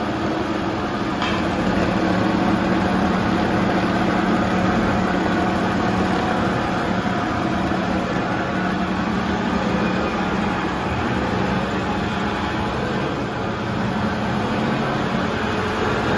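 Electric foam-cutting machine running steadily, its motor giving a constant hum over a steady mechanical noise.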